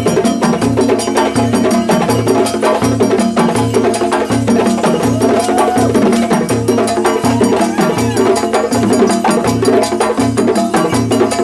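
West African percussion ensemble playing a driving rhythm. Dundun bass drums beat a repeating low pattern under a dense layer of sharp hand-drum strikes and ringing metal bells.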